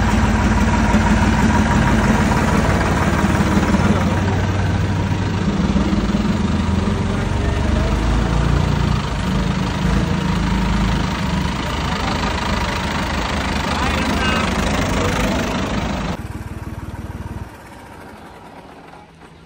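Diesel tractor engine running at low revs, its low note shifting up and down as it moves; the sound drops away sharply near the end.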